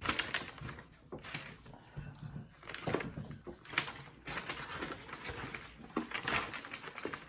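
Crunching and chewing of a hard, large SweeTarts candy, in irregular crunches.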